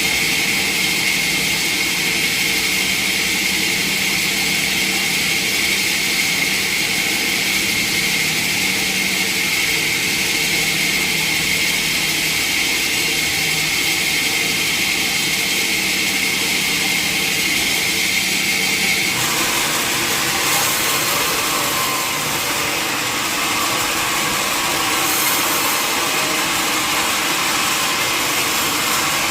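Sawmill machinery running steadily, with a high whine. About two-thirds of the way through the whine stops and gives way to a broader hiss.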